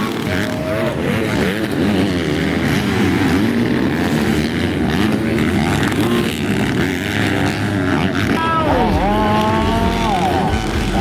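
MX2 motocross bike engine revving up and down repeatedly as it is ridden around the track. About eight and a half seconds in it climbs sharply to a held high rev, then drops off shortly before the end.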